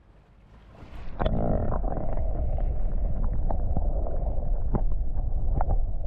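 Sea at the shore: a steady low rumble with scattered small clicks, rising sharply in level about a second in after a quiet start.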